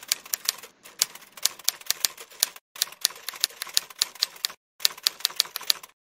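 Typewriter keys clacking in quick runs, about four or five strikes a second, broken by two brief pauses and stopping just before the end.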